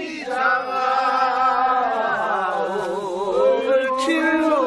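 A group of men singing a Korean rice-paddy weeding song (nonmaegi sori) in chanting style, holding long notes with a wavering pitch.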